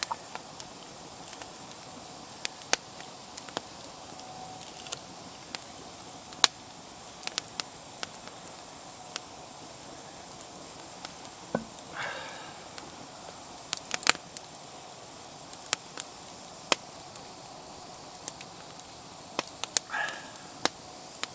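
Wood campfire crackling, with sharp irregular pops over a steady faint hiss.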